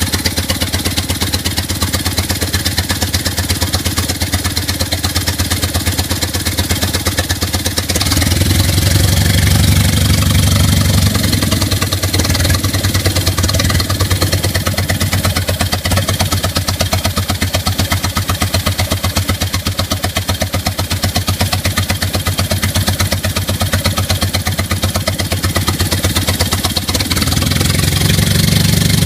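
Smith Gordon Model A engine-driven air compressor running with a steady, fast, even chugging beat. It gets louder and heavier about eight seconds in for a few seconds, and again near the end.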